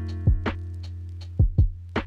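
Background music: a held low bass note and chord under a beat of deep kick-drum thumps.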